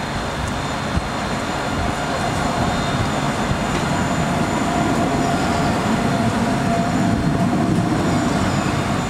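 An Alstom Citadis low-floor tram passing close by on its track: a steady rumble of wheels on rail with a faint steady whine above it. It grows a little louder as the tram goes past.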